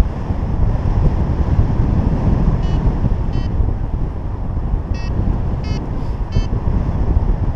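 Wind rushing over the camera's microphone in flight, a loud steady low rumble. Five short, high electronic beeps sound from about three seconds in, spaced under a second apart, like the climb tones of a flight variometer signalling rising air.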